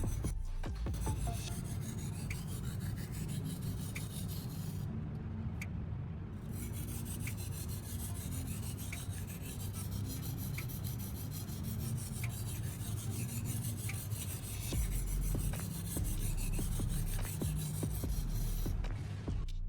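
Kitchen knife blade stroked back and forth across the fine-grit side of a wet two-sided whetstone: a steady scraping rasp, with a faint tick about every second and a half as the strokes repeat. This is the polishing stage that finishes the edge.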